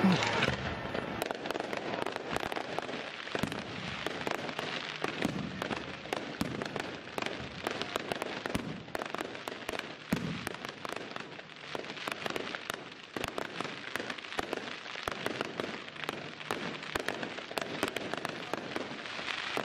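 Fireworks display: a dense, continuous crackling of crackling-star shells, with many sharper pops and bangs among it. The loudest bang comes right at the start.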